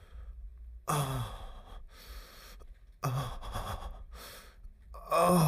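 A person's voice sighing three times, about two seconds apart; each sigh is breathy and falls in pitch.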